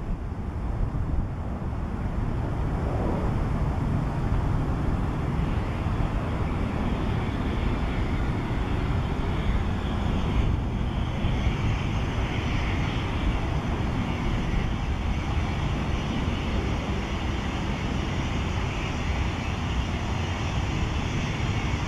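Light business jet, an Embraer Phenom 100, touching down and rolling out with its twin turbofans running at low thrust, a steady jet hiss and rumble. A slightly brighter high whine comes in about eleven seconds in.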